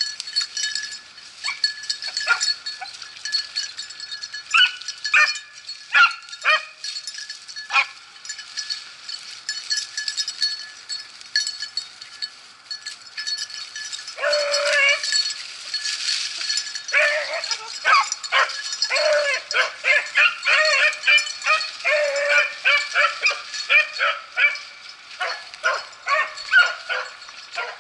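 Beagles baying: a few scattered calls at first, then from about halfway a dense run of rapid, overlapping bays, the sound of the pack in full cry while trailing a rabbit.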